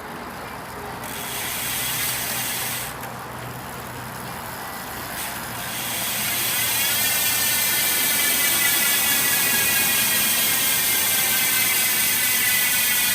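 Merida Reacto DA road bike's rear freehub ratchet buzzing as the wheel freewheels, the pawls clicking too fast to count. There is a short burst about a second in. A second run starts after about five seconds, speeds up and grows louder, then holds steady until it stops abruptly at the end.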